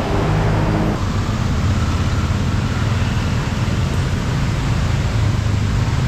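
A motor vehicle running: a steady low drone under an even rushing hiss, with a slight change in the drone about a second in.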